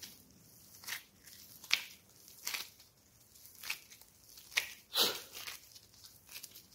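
Gloved hands kneading and squeezing a lump of soft, sticky biscuit dough: irregular short, soft noises of the dough pulling apart and being pressed, about one a second, the loudest about five seconds in.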